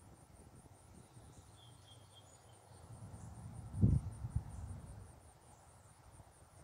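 Insects chirping in a steady, even, high-pitched pulse over a low outdoor rumble, with a short low thump about four seconds in.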